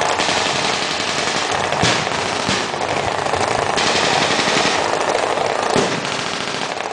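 Rapid automatic gunfire, shots running together into near-continuous firing, with a few louder single reports standing out.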